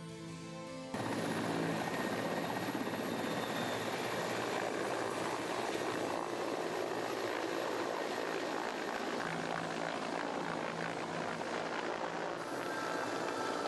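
Helicopter flying low, a steady loud rush of rotor and turbine engine noise that starts suddenly about a second in, cutting off music.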